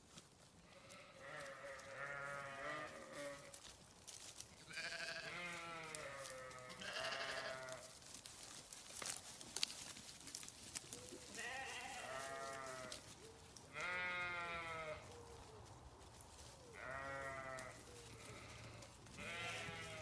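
Sheep bleating, about seven wavering baas of around a second each, from several animals in turn.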